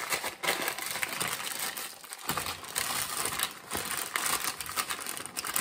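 Baking paper crinkling and rustling in irregular handfuls as gloved hands fold and press it shut around meat, with short pauses between folds.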